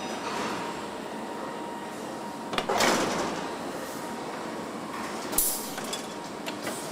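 Car-factory assembly-line noise: a steady machinery hum. A clack and a short burst of compressed-air hiss come about two and a half seconds in, and a sharper clack with a brief hiss a couple of seconds later, from the pneumatic door-handling rig.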